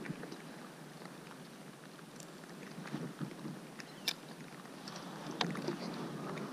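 Faint handling sounds of a hook being worked out of a small bass's mouth with fishing forceps: a few light clicks, the sharpest about four seconds in, over a low background hiss.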